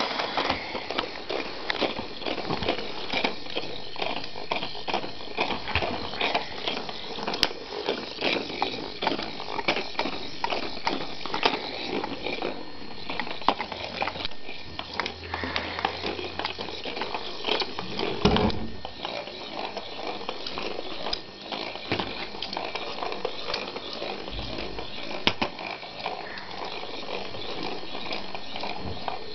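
Motorized Weasel Ball toy ball rolling about on its own, giving a steady, irregular clatter of small clicks and rattles, with a couple of duller thumps as it bumps into things.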